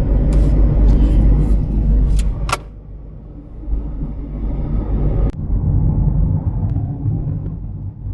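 Car road noise heard from inside the cabin: a heavy low rumble with a few sharp clicks, dropping to a quieter, steadier rumble about two and a half seconds in.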